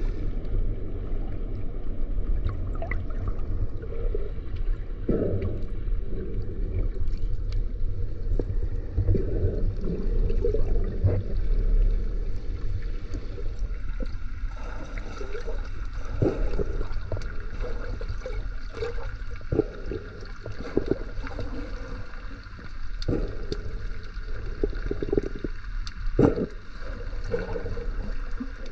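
Muffled water noise around a camera held underwater: a steady low rumble and sloshing, with many short sharp clicks and pops scattered throughout.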